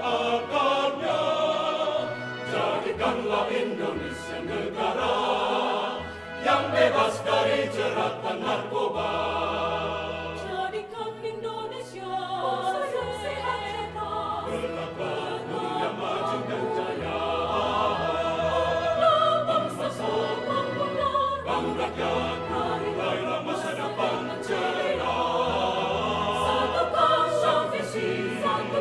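Mixed church choir of men's and women's voices singing a sacred piece in parts, held low bass notes under the upper voices.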